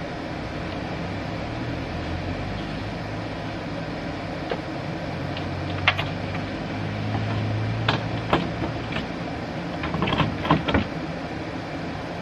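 A steady low hum of a distant engine in the background, swelling and fading, with a few sharp knocks and clatters of solar panel frames and a wooden board being handled, most of them in the second half.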